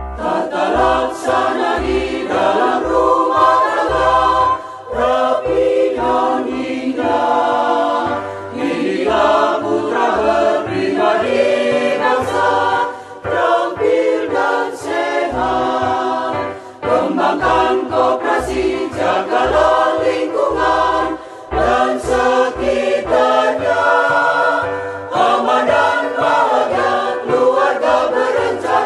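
Background music: several voices singing together over a steady bass beat.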